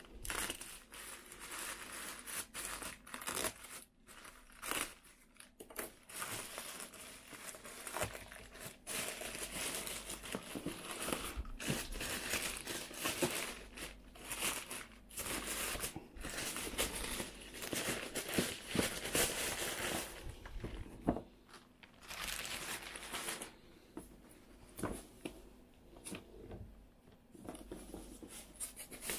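Black plastic courier mailer bag being cut and torn open and crinkled as a boxed item is pulled out of it: irregular plastic crinkling and tearing with short pauses. It grows quieter and sparser over the last several seconds, as the foam-wrapped box is handled.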